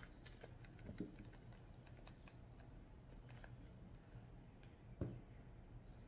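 Faint shaking of a spice shaker, seasoning pattering onto a corn cob, with scattered small clicks and two soft thumps, about a second in and about five seconds in.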